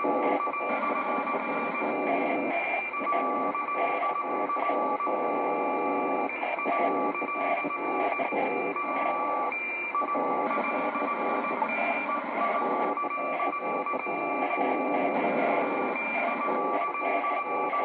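Glitchy TV error-screen sound effect: a harsh, crackling electronic buzz under a steady high beep tone that cuts out briefly now and then.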